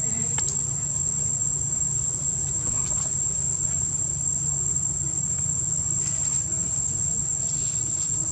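Insects droning steadily in one continuous high-pitched tone, over a low steady hum.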